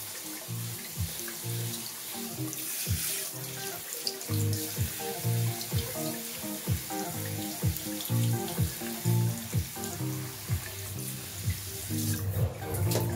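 Tap water running and splashing over the fabric grille of a JBL Flip 5 portable speaker held under the stream, with music that has a steady bass and kick-drum beat playing throughout.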